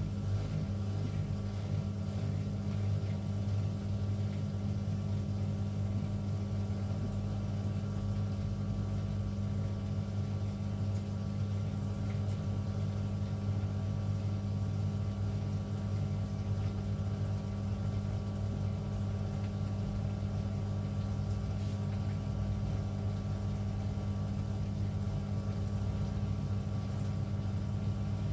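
Beko bPRO500 washing machine running a steady, unchanging motor hum with its empty drum turning, part of its first calibration cycle.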